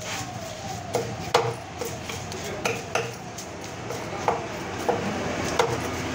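A steel knife knocking and scraping on a wooden chopping block while grey mullet are cleaned: a series of irregular sharp knocks, each with a short ring.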